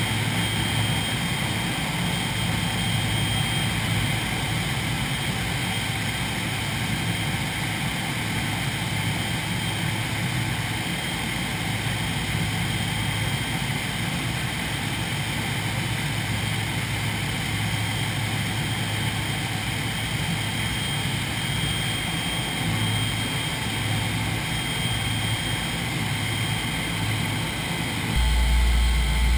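Steady drone of the B-29 Superfortress's four Wright R-3350 radial piston engines and propellers in cruise flight, heard inside the cockpit. Near the end the sound turns suddenly louder and deeper.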